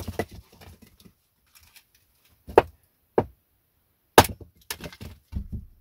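Small hatchet chopping and splitting knotty firewood on a wooden chopping block. About five sharp strikes come at uneven intervals, the loudest about four seconds in, with lighter knocks between.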